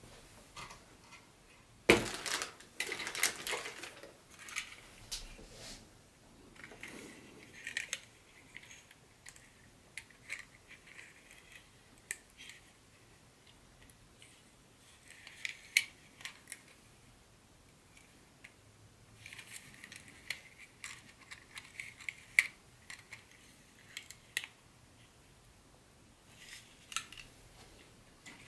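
Small items and packaging being handled by hand: scattered clicks, taps and rustles in short clusters with quiet gaps, the sharpest click about two seconds in.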